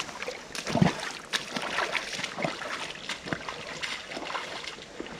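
Footsteps wading through a shallow creek, water splashing around the legs in irregular strokes.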